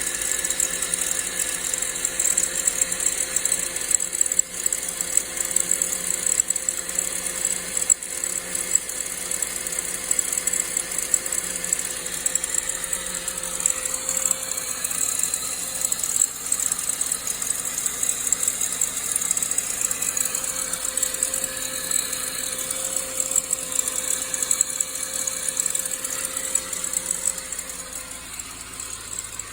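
Saab 9-5's B205E four-cylinder turbo engine running steadily, with a rattling noise from the belt and timing chain area. The sound drops slightly about a second before the end.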